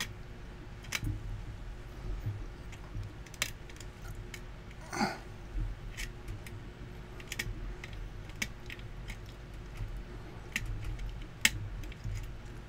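Irregular small metallic clicks and ticks of a hook pick and tension wrench working the pin stack of an E-Z Set brass lock cylinder under heavy tension, while it is being single-pin picked. A brief louder scrape comes about five seconds in.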